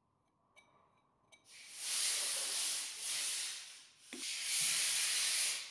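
Steel straightedge rubbed back and forth over the blue-marked face of a machine spindle housing, checking it for flatness: two spells of rubbing hiss of about two seconds each, with a short knock between them.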